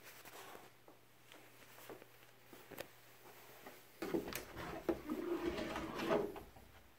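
An interior closet door being opened about four seconds in: a few sharp clicks and knocks from the door and its knob, with rustling and handling noise over a couple of seconds.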